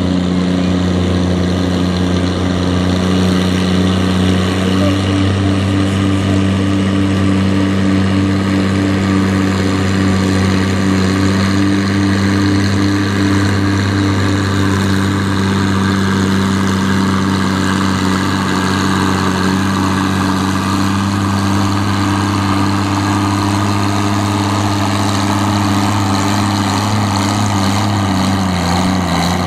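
Farm pulling tractor's diesel engine running steadily. Its pitch steps up slightly about five seconds in and drops near the end.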